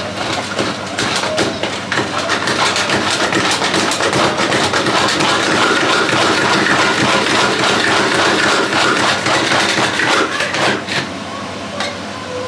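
Electric food chopper running, mincing tomatoes to a fine pulp: a steady motor whine mixed with many rapid clicks of the pieces hitting the blade and bowl. It stops about eleven seconds in.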